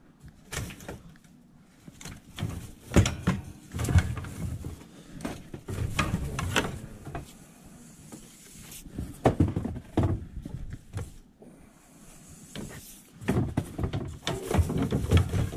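Stored junk being handled and moved by hand: irregular knocks, clunks and scrapes of wood and metal, the sharpest about three seconds in, with a busier run of handling noise near the end.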